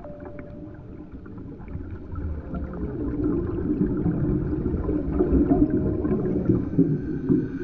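Scuba diver's exhaled bubbles rumbling and gurgling over an underwater camera housing, swelling about two seconds in and staying loud until just before the end.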